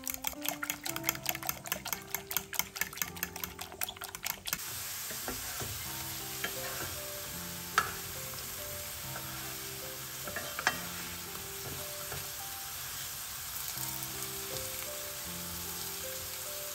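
Eggs beaten by hand in a glass bowl, a fast run of clicking strokes at about six a second, that stops abruptly. Then thin potato slices frying in oil in a nonstick pan: a steady sizzle, with two sharp clicks of a wooden spatula against the pan.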